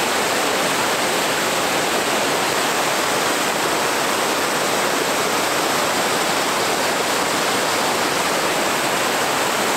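A large waterfall close by: a steady rush of water pouring over the falls and churning in the pool below.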